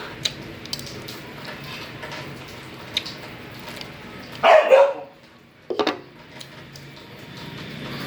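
A dog barks twice about halfway through, the first bark louder and longer than the second, over faint small clicks.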